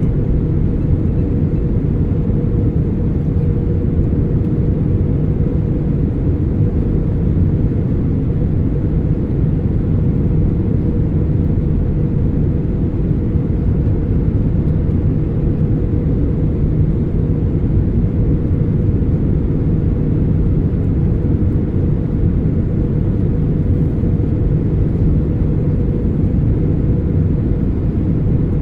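Airbus A320 cabin noise in flight: a steady, unbroken low rumble of engines and airflow with a faint constant hum near the top of it.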